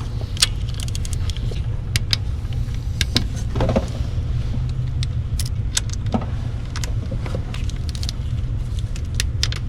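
Scattered sharp metallic clicks and clinks of a torque wrench on the fan hub bolts, over a steady low rumble.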